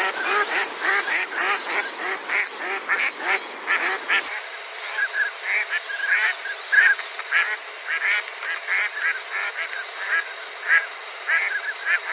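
Northern pintail ducks calling: a steady run of short, pitched calls, several each second.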